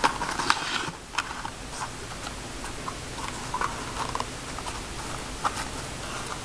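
Scattered light clicks and taps of a switchblade and its packaging being handled, with a quick cluster of sharper clicks about the first second.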